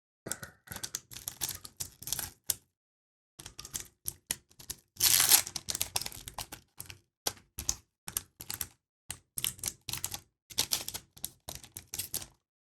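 Crackling and sharp clicks of a knife cutting open and handling a basketball card pack's wrapper, with a louder, longer tearing sound about five seconds in.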